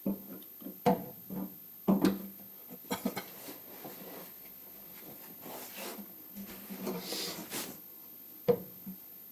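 Hand-tool work in a small garage: a run of sharp knocks and clicks of tools and parts being handled, then a few scraping strokes in the middle, and one more knock near the end.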